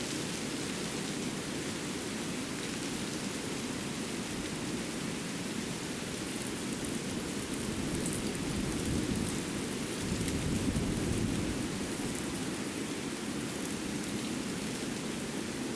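Winter forest ambience: a steady rushing hiss with no distinct events. It swells briefly louder, with a low rumble, around the middle.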